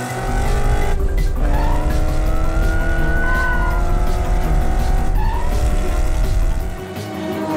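Cartoon race-car engine revving hard with a deep rumble, its pitch climbing steadily, falling back twice as it changes gear and climbing again. The rumble drops away near the end.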